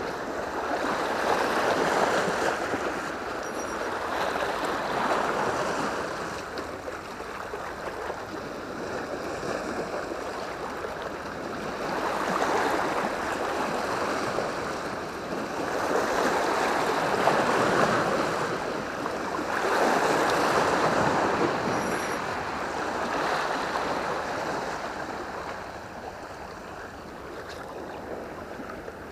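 Sea waves washing against breakwater rocks, the rush of water swelling and fading every few seconds.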